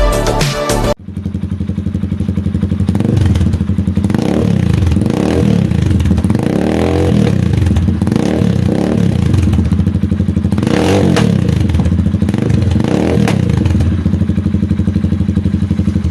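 Rusi Classic 250 motorcycle engine running with a steady pulsing beat, revved up and let back down to idle several times. A short stretch of music ends about a second in, just before the engine starts.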